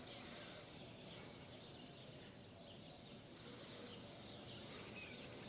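Near silence: faint outdoor background with a few faint bird chirps.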